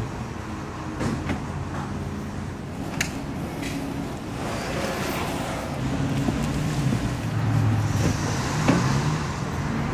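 Road traffic noise: a steady low rumble that grows louder toward the end, with a few sharp clicks and knocks.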